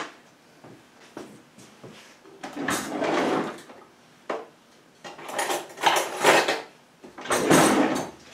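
Kitchen utensils scraping and clinking against a bowl while dressing ingredients are handled: three rough scrapes of about a second each, with a few light clicks between.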